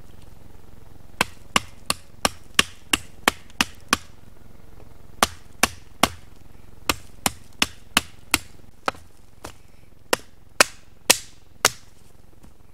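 Small axe chopping a branch lying on the forest floor: about twenty sharp blows in quick runs of roughly three a second, with short pauses between the runs.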